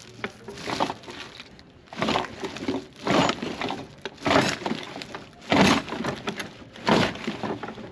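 A jammed tool box drawer being yanked at about six times, each tug setting the tools packed inside rattling and clanking as it catches; the drawer is too overstuffed to open.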